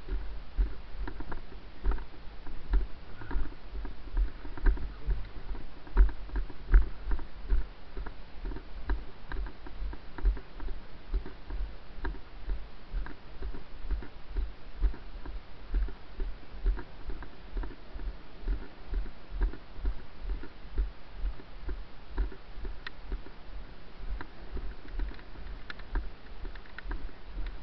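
A person's walking footsteps on wet grass, heard as low thumps jolting a body-worn camera, about two to three a second, with faint rustling between steps.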